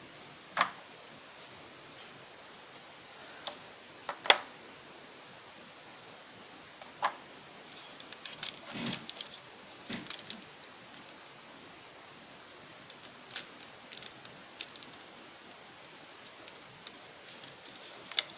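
Small packaging being handled by hand: scattered single taps and clicks from a small box and its lid, then clusters of crinkling from a clear plastic bag being pulled and squeezed, about eight seconds in and again around thirteen to fifteen seconds.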